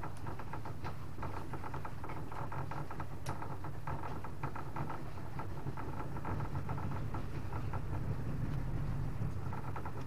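Small boat engine running steadily at low revs, a low even hum, with faint scattered clicks over it.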